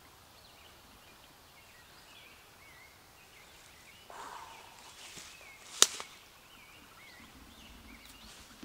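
A single sharp snap a little before six seconds in, from tugging on a fishing lure and line snagged in the tree branches overhead, over faint songbird chirps.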